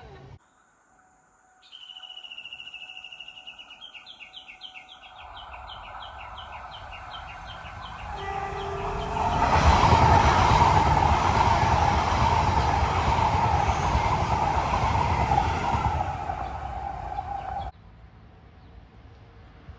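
Japanese level-crossing alarm ringing in a rapid alternating two-note pattern as a train approaches. The train then passes loudly with rumble and wheel noise, with a short low horn note just before it arrives, and the sound cuts off abruptly near the end.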